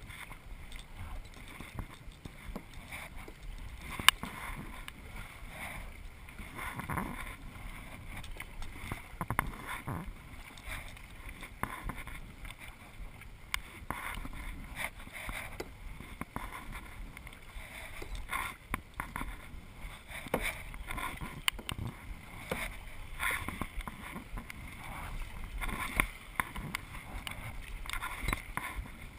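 Kayak paddling: paddle blades dipping and splashing in the water, with an occasional sharp knock, the loudest about four seconds in.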